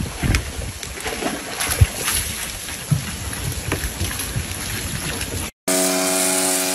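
Water sloshing and splashing in a plastic storage bin as a large dog climbs in and sits down, with wind rumbling on the microphone. Near the end the sound cuts out for a moment and a steady humming drone takes over.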